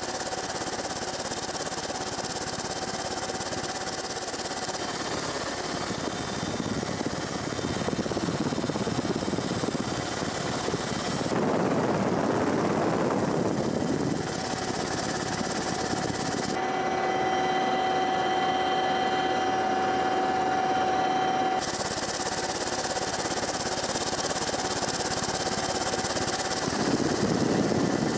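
Steady noise of an aircraft's engines and rushing air heard from on board, with a constant hum running through it. The sound changes abruptly a few times where the footage is cut.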